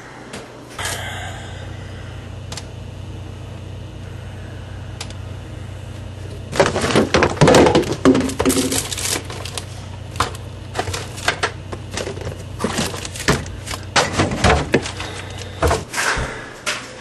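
Jars, bottles and containers clattering and knocking as someone rummages through an open refrigerator, a run of irregular clicks and bumps with rustling from about six seconds in, over a steady low hum.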